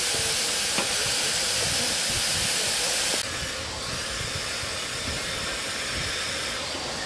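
Steam locomotive letting off a steady hiss of steam, which drops abruptly to a quieter hiss about three seconds in.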